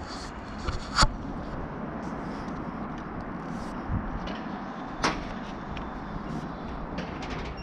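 Giant swing in motion: a steady rush of air across the rider's camera, broken by two sharp knocks from the swing's steel bar and carabiner rigging, about a second in and again about four seconds later.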